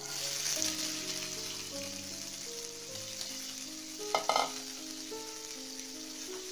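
Chopped okra sizzling in hot oil in a non-stick frying pan, the hiss starting as the okra goes in. A short clatter of knocks about four seconds in.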